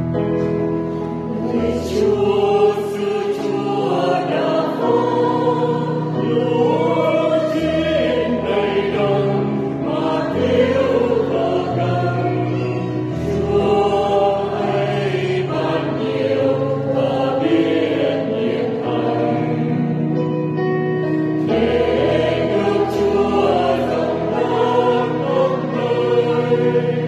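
Choir singing a Vietnamese hymn in sustained, slow chords, accompanied by an electronic keyboard.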